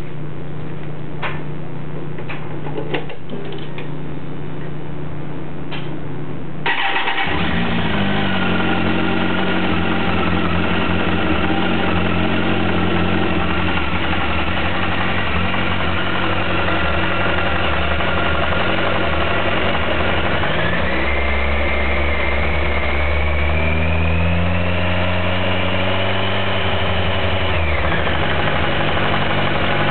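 2007 Kawasaki ZX-14's inline-four engine: after a steady hum and a few clicks, it is started about seven seconds in and idles. Its revs rise slowly from about twenty seconds in, then drop back to idle near the end. It has a bottom-end knock, which the owner takes for rod knock and Kawasaki calls normal for the model.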